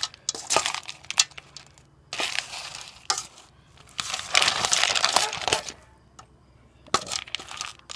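Spoon stirring canned dog food into dry kibble in a bowl: gritty crunching and scraping in four bouts with short pauses between.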